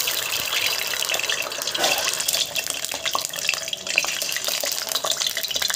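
Peeled hard-boiled eggs sizzling in hot oil in a kadhai: a steady frying hiss scattered with small crackles and pops of oil spatter.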